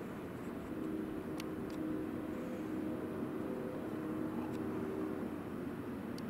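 Distant engine drone, a faint steady hum over low outdoor background noise, with a few faint clicks.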